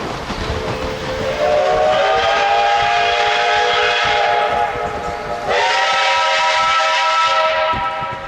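Steam locomotive whistle sounding a chord of several notes in two long blasts: the first swells in over about a second, the second starts abruptly about five and a half seconds in. A steady hiss runs underneath.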